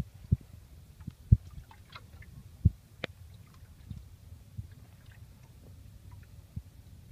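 Dull low knocks against a small boat's hull with light water lapping: three loud thumps in the first three seconds, a sharp click just after, then a few softer thumps.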